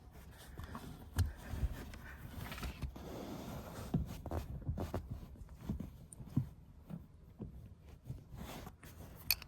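Toyota Century rear seat and its plastic trim being pulled loose by hand: irregular knocks, thumps and rustling, with a sharp click near the end.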